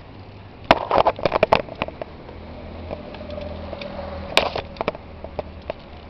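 Bicycle and handheld camera rattling and knocking while riding: a cluster of sharp clattering knocks about a second in and another sharp knock past the four-second mark, over a low steady rumble of wind and rolling tyres. A faint steady whine is heard briefly just before the second knock.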